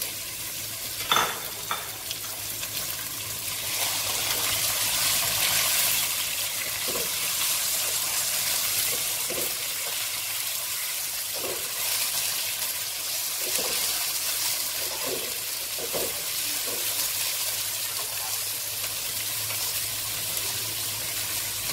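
Boneless chicken sizzling in hot oil with fried onions and garlic in a nonstick wok, the sizzle growing louder a few seconds in. A silicone spatula stirs it, giving a sharp knock about a second in and light scrapes every second or two.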